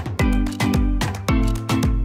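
Upbeat background music with a steady, driving beat.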